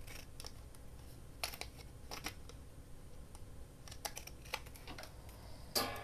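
Scissors snipping paper: a scattered series of short, sharp clicks, some in quick pairs, with a slightly longer burst near the end.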